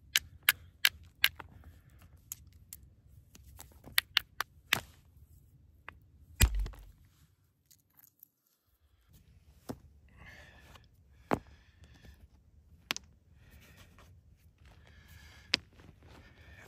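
Stone knocking on stone: sharp clicks, about seven in the first five seconds, then a heavier thud. After a short silence there is rustling and a few more clacks as rocks are set down on a cloth over gravel.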